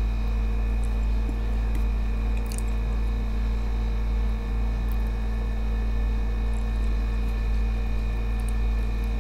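A steady low hum with several faint held tones above it, and a few faint high ticks scattered through it.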